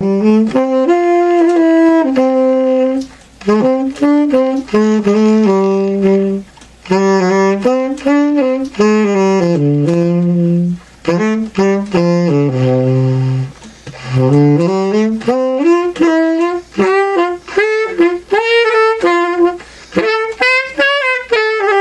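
Solo saxophone playing a melodic line in short phrases with brief breaths between them, stepping down to a low held note about two-thirds of the way through, then climbing back up.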